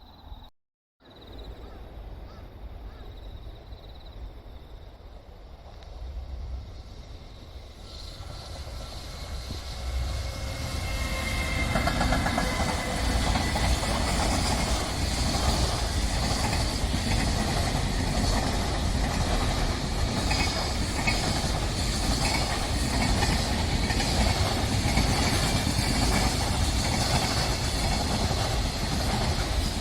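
A train approaching on the Sanyo Main Line and passing close by, growing louder from about eight seconds in and then running loud and steady with rail and wheel noise to the end.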